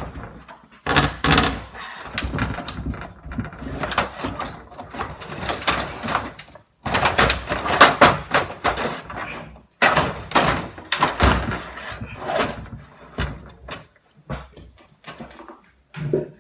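Repeated, irregular hammer blows on a stuck part of a 17.5 hp Briggs & Stratton engine, knocking it loose during teardown. The strikes come in clusters with short pauses between them.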